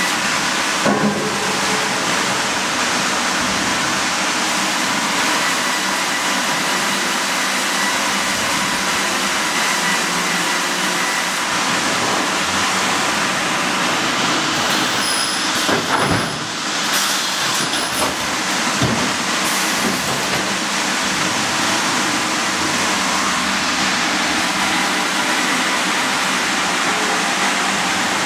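Sawmill headrig running: the band saw and the hydraulic log carriage make a loud, steady machinery noise with a faint steady whine through it. A few short knocks and clunks sound about a second in, around the middle and a few seconds later.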